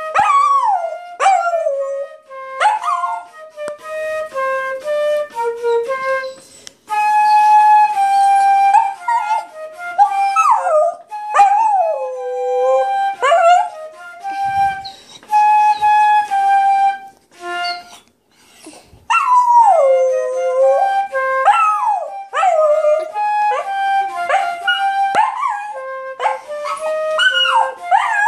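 A flute playing held notes while a dog howls and whines along, its voice sliding up and down against the flute's steady pitches. For a few seconds at a time the flute notes sound on their own between the howls.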